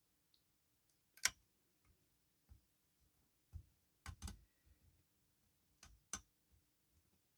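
Scattered light clicks and taps of a steel lock pick working the pins inside a challenge lock under tension, the sharpest about a second in and again around four and six seconds.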